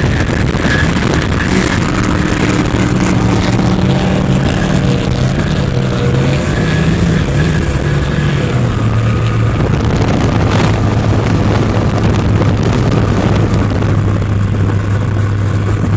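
Supercharged V-drive boat engine running at speed, with wind and water rushing past. Its pitch shifts several times in the first half, then holds steady.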